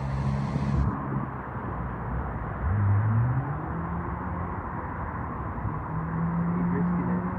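Vehicle engine running under a steady rushing noise, its note rising about three seconds in and settling into a steady hum near the end.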